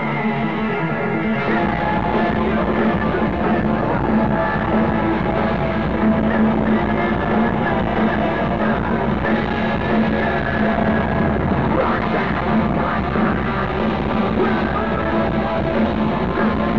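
A live rock band playing loud over the PA: electric guitars, bass, drums and keyboard, with a singer's voice on the microphone, heard from among the crowd.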